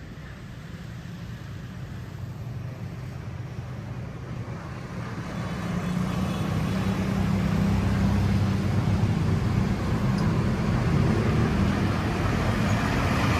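Bus engine and road noise rumbling, growing steadily louder over the first several seconds and then holding steady; no horn sounds.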